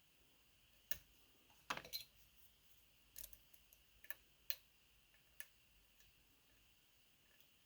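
Faint, irregular small metal clicks of a lock pick working the pins of a Medeco Biaxial pin-tumbler lock, about eight clicks spread unevenly over five seconds.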